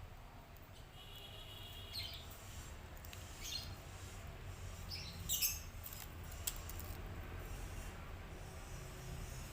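Small birds giving short, high chirps a few times, the loudest about five seconds in, over a low steady rumble.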